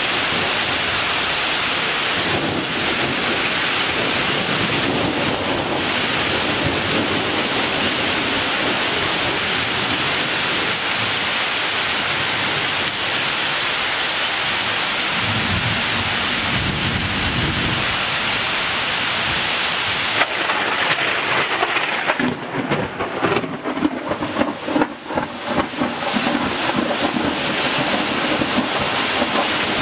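Heavy thunderstorm rain hissing steadily, with a low roll of thunder swelling about halfway through. In the last third the sound turns uneven, with many short irregular taps and dips.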